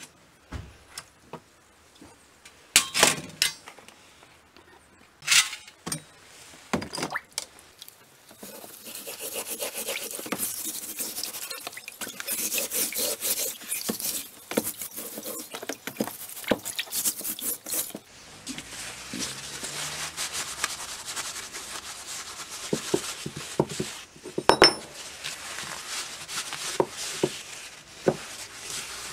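Plastic tub lid clips snapping open with a few sharp clicks, then water sloshing and splashing as a steel hatchet head is scrubbed with a cloth in a tub of rinse water. For the last ten seconds or so, a paper towel rubs loosened rust residue off the hatchet head, with one sharp click.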